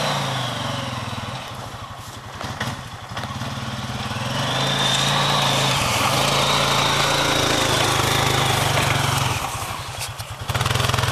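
ATV engine running while the quad pushes snow with a front plow. It dips, then rises to a louder stretch with a high whine in the middle, and eases off near the end.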